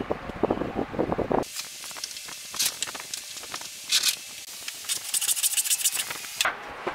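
Hand bench plane cutting shavings off the edge of a board clamped upright: a series of quick, high, scraping strokes that start about a second and a half in. Before that there is a short stretch of duller, lower noise.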